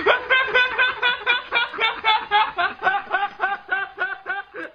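A man laughing hard in a long unbroken run of quick, even bursts, about four or five a second.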